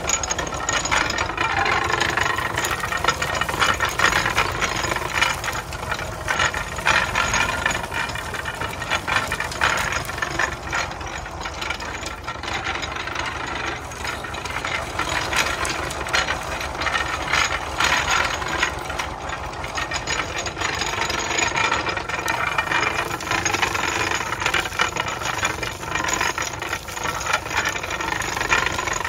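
A tractor engine runs steadily, driving a belt-driven iron sugarcane crusher whose gears and rollers rattle and clatter continuously as cane stalks are fed through and crushed.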